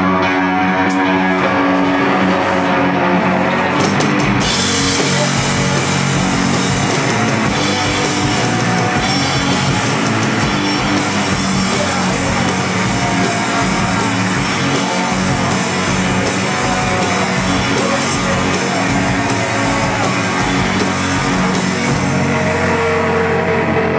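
Live rock band playing loud: electric guitars ring out sustained chords, the drum kit comes in about a second and a half in, and cymbals wash over everything from about four seconds on.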